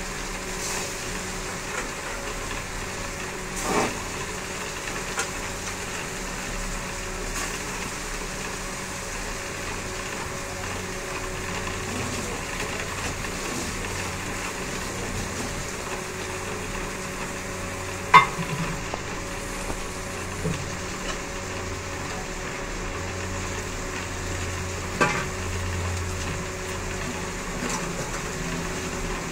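Chicken pieces in beaten egg sizzling steadily as they fry in oil in a metal kadai. A metal spatula scrapes and knocks against the pan a few times, the sharpest knock a little past halfway.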